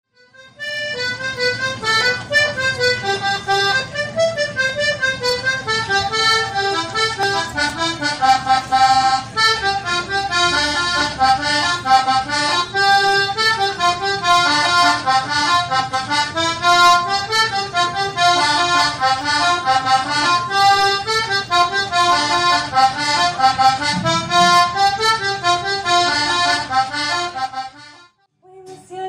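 Button accordion playing a lively instrumental folk tune solo, a quick run of melody notes over a steady bass accompaniment. The tune breaks off near the end.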